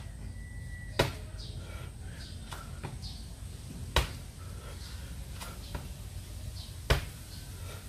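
Sharp impacts from a person doing burpees, one about every three seconds, three in all. Fainter shuffling sounds come between them over a steady low hum.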